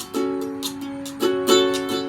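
Ukulele strumming chords, with a few strums that ring out between them: one just after the start, a lighter one mid-way, and two firm strums in quick succession near the end.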